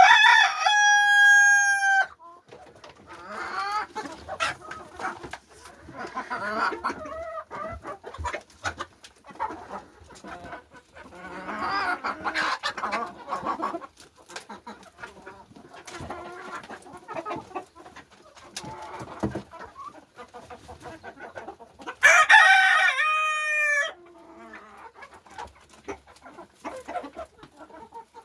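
Mixed-breed chickens clucking, with a rooster crowing twice: one loud, drawn-out crow right at the start and another near the end.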